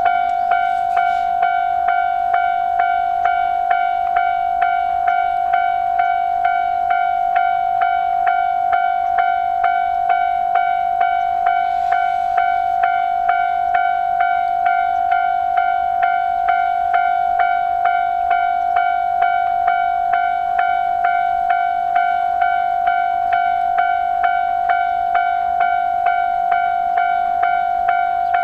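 Japanese railway level-crossing alarm ringing its 'kan-kan' ding in a steady, even rhythm, about one and a half to two dings a second, on a single unchanging pitch.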